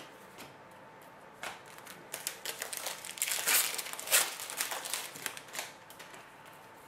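A sports-card pack wrapper crinkling and tearing as it is opened, in a run of short rustles starting about a second and a half in, loudest near the middle.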